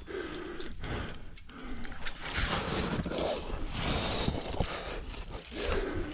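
A climber breathing hard and grunting with effort on the climb, with scattered clicks and scrapes.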